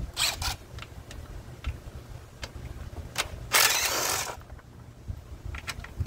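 Cordless drill with a socket bit running in a short burst of under a second about three and a half seconds in, backing out an engine cover bolt, with scattered clicks and knocks of the tool against the mower before it.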